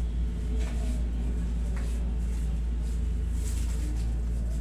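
Steady low hum of a window-type room air conditioner, with a few faint clicks about a second apart.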